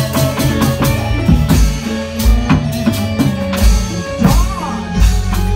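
Loud Reog Indramayu dance music with drums, a heavy thudding bass beat and a melody line over it.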